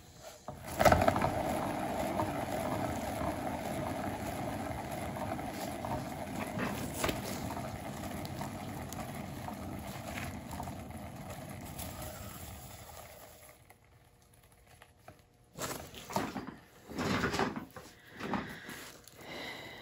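Turntable under a round painted board, given a push by hand about a second in: a steady whirring that slowly fades as the spin winds down, stopping about 13 seconds in. A few short knocks and handling noises follow near the end.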